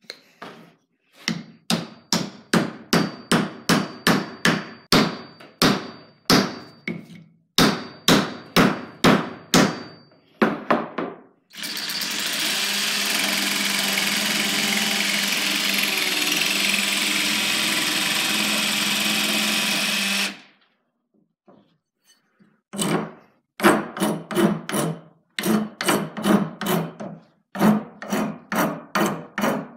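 Rapid knocks, two or three a second with a faint metallic ring under some of them, as the hatchet head is driven down onto its new ash handle. About a third of the way in, a DeWalt jigsaw starts, cuts the protruding ash handle end off flush with the head for about nine seconds and stops. A few seconds later a hand file rasps back and forth across the cut end, about two strokes a second.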